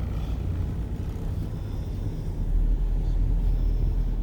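Road and engine noise inside a moving van's cabin: a steady low rumble that grows a little louder about halfway through.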